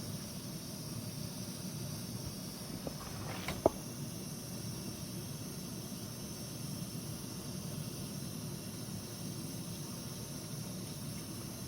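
MSR WhisperLite International liquid-fuel stove burning with a steady roaring hiss, and one sharp metallic click about three and a half seconds in.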